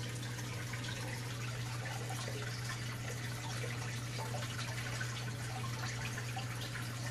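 Steady background hiss with a constant low hum underneath: room noise.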